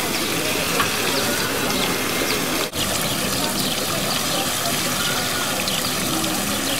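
Steady splashing and spraying of water from the jets of Jean Tinguely's kinetic fountain sculptures falling into the shallow basin, with people's voices in the background.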